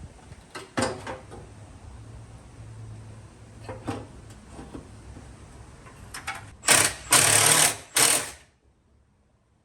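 Car repair work: scattered metal knocks and clicks, then three short, loud bursts from a power tool near the end, the middle one the longest, rattling like an air impact wrench.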